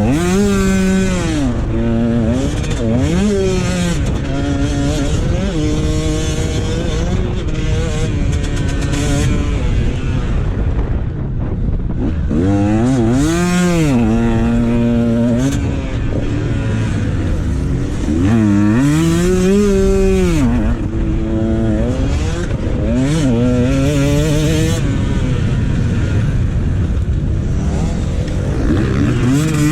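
Dirt bike engine being ridden hard, its pitch climbing and dropping back again and again as the throttle is opened and shut, with a rumble of wind and ground noise underneath.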